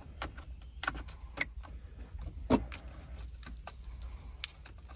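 Small clicks and taps of color-coded plastic antenna plugs being pushed into the back of a car radio head unit, with a sharper knock about two and a half seconds in. A faint low hum runs underneath.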